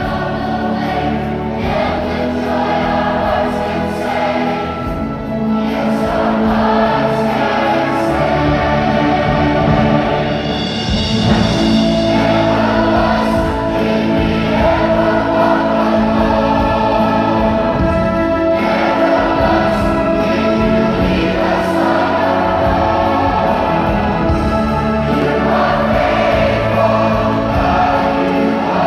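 A large children's choir singing together, holding long sustained notes.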